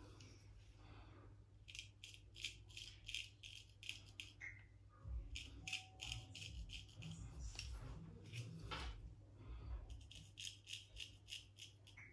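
Faint short scraping strokes of a razor blade cutting through gel-lathered stubble on the neck, in quick runs of several strokes at a time, shaving downward with the grain.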